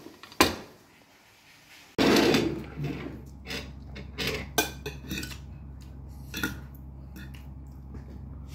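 Metal fork and spoon clinking and scraping against a plate of noodles: two sharp clinks right at the start, then a run of short clinks through the middle. A steady low hum comes in about two seconds in.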